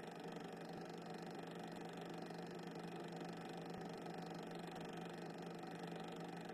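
Steady low hiss with a constant hum and nothing else: the background noise of a silent cine-film transfer, with no sound from the train.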